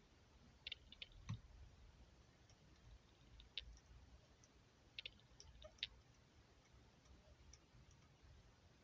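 Faint clicks and light knocks of parts being handled on an ARES L85A3 airsoft rifle during a spring change, about six sharp clicks in small clusters with quiet between them.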